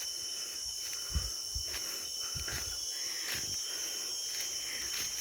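Steady high-pitched drone of insects calling in tropical vegetation, with several soft low thumps from footsteps on the trail.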